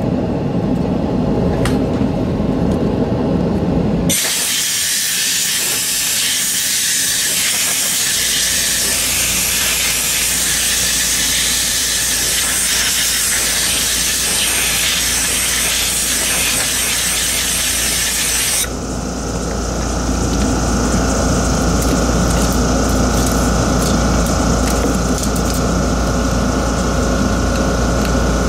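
Compressed air blowing out the inside of an opened mouse: a loud, steady hiss that starts abruptly about four seconds in and cuts off about fifteen seconds later. A steady motor hum with a high whine runs before and after it.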